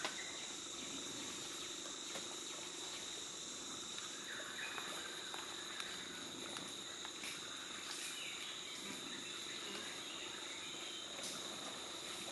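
Insects chirring steadily in rainforest, a constant high-pitched drone on two pitches, with faint scattered rustles and ticks.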